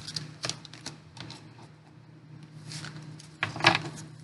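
Glossy tarot cards being handled: a string of quick clicks, slaps and rustles as cards are slid off the deck, with the loudest flurry about three and a half seconds in.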